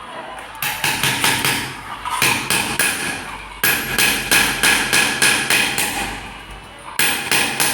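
Rapid, even metal-on-metal tapping strikes on gold, about five a second, in runs broken by short pauses. This is goldsmith's punching and hammering work on a gold bracelet.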